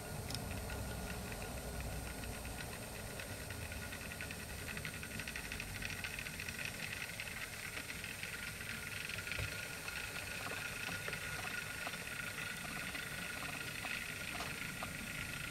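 Model steam tank locomotive running along the layout track: a steady mechanical whirr and rattle, a little stronger from about a third of the way in, with faint scattered clicks.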